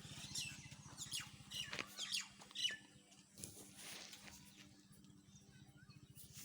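Small birds chirping: a quick run of short, high calls that fall in pitch, bunched in the first three seconds with another near the end, over a faint steady low hum.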